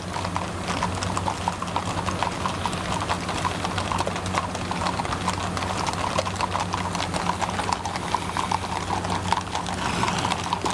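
Many horses' hooves clip-clopping on asphalt at a walk, a dense run of overlapping hoofbeats from a line of riders passing, over a steady low hum.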